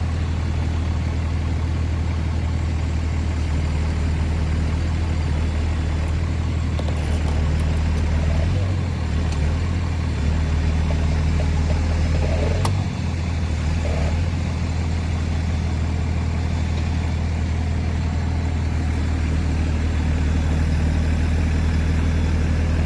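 Truck engine idling steadily with a deep, even hum, dipping briefly twice along the way.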